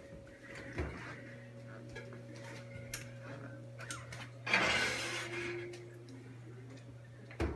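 Oven door pulled open with a thump about a second in, then a metal baking sheet scraped onto the oven's wire rack about halfway through, with light clattering around it, over a steady low hum.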